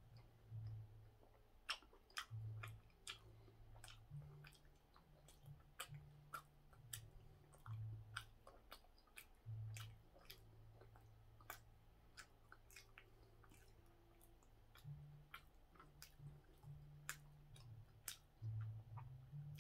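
A person chewing a soft steamed bun (hoppang) with the mouth closed: faint wet mouth clicks and smacks scattered throughout, over a faint low hum.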